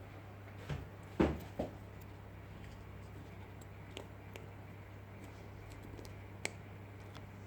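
A few short, light knocks and clicks, the loudest about a second in, over a steady low electrical hum.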